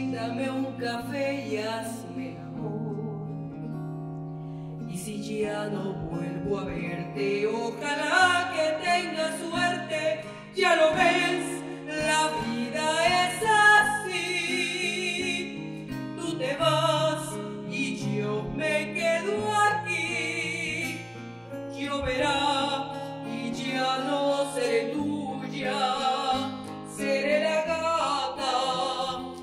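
A woman sings a Spanish-language ballad to acoustic guitar accompaniment, in long phrases with short breaks between them.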